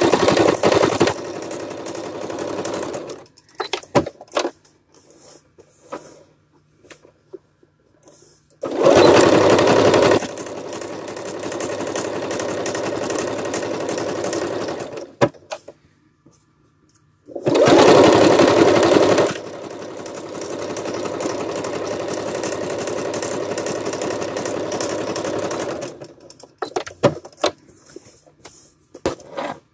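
Electric sewing machine stitching in three runs of several seconds each, each run starting louder for a second or two and then settling to a steady hum. Scattered light clicks and taps fall between the runs and near the end.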